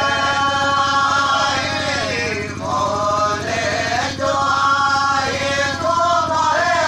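Men singing a slow chant: long held notes that bend and glide in pitch.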